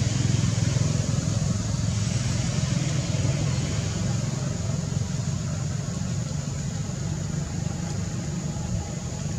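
Steady low rumble with an even hiss of outdoor background noise, unbroken throughout; no monkey calls stand out.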